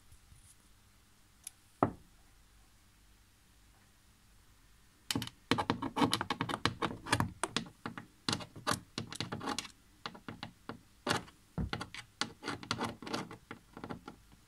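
Hand tools working on a car door's check strap: one sharp click about two seconds in, then a long irregular run of clicks and knocks of metal against metal and the door.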